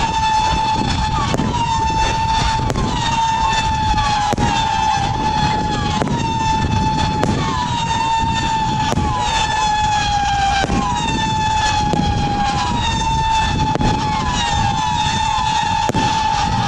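Firework howler cake firing: a new shot about every 0.7 s, each with a sharp crack and a long howling whistle that flicks up in pitch and then holds steady. The howls overlap into an almost unbroken siren-like tone.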